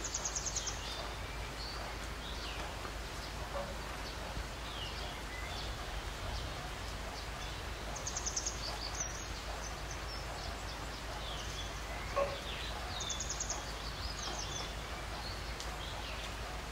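Semolina simmering in ghee syrup in an aluminium pot, a quiet steady hiss with small pops. A bird's short high trill sounds three times, about four to five seconds apart, and the stirring spoon knocks lightly against the pot once, about twelve seconds in.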